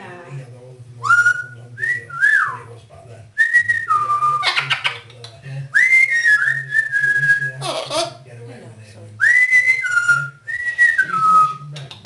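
Amazon parrot whistling a phrase of clear notes that glide up and then step down, four times over, with a harsher cry that falls sharply near the eighth second.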